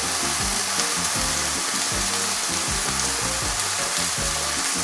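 Beef strips, sliced peppers and onion sizzling steadily in a hot pan over a high gas flame, left unstirred to sear.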